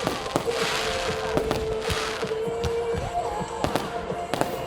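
Fireworks going off: a quick string of bangs and pops, with two bursts of crackling hiss about half a second and two seconds in.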